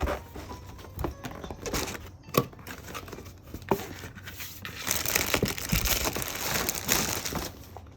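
Plastic clicks and knocks from a LEGO-built typewriter being worked, with a denser rustling clatter for a couple of seconds past the middle.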